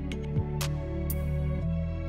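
Instrumental background music: sustained chords over a low bass line, with sharp percussion hits.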